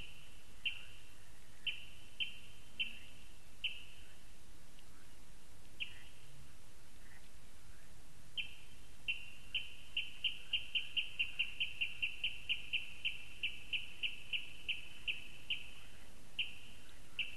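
A bird calling with short, high-pitched notes. A few come at irregular intervals at first, then from about halfway a long series quickens to about four notes a second and slows again near the end, over a steady faint hiss.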